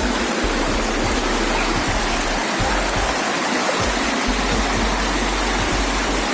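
Steady rush of flowing floodwater from an overflowing drain.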